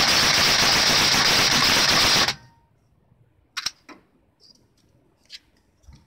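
Tokyo Marui next-generation electric airsoft rifle, custom-tuned for speed, firing a long unbroken string of shots at a very high rate, stopping abruptly about two seconds in. A few single clicks follow as the rifle is handled.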